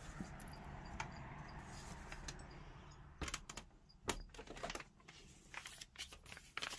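A PVC window being shut: a faint steady outdoor background, then from about three seconds in a knock and a run of sharp plastic clicks as the sash closes and is handled.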